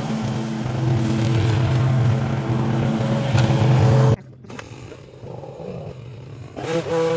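Small engine of lawn-care equipment running steadily with a low hum, cutting off abruptly about four seconds in. After a quieter stretch, a higher-pitched engine comes in near the end.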